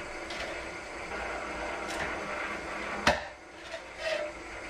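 Old pedestal drill running as its 22 mm bit cuts through a sheet-metal light bracket, a steady cutting noise with a sharp click about three seconds in, after which the noise drops away and a few light knocks follow.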